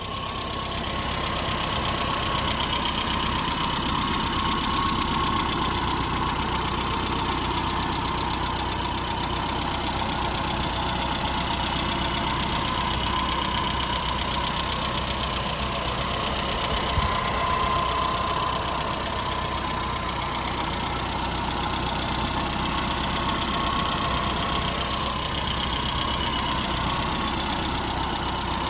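A 1996 Rover Mini's 1.3-litre four-cylinder engine idling steadily, with a steady whine over it.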